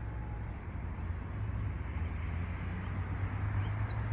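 Outdoor street ambience: a steady low rumble with a couple of faint, short bird chirps near the end.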